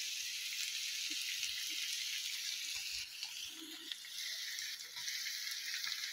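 Frying pan of spiced chicken and noodles sizzling softly on the stove, a steady hiss that fades for a moment about halfway through.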